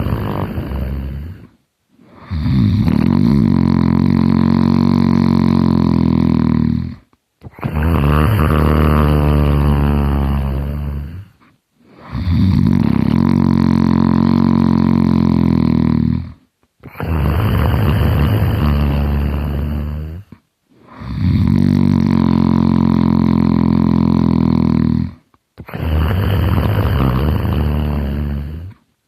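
A man snoring heavily: about seven loud, drawn-out snores of some four to five seconds each, following one another with only brief pauses between breaths.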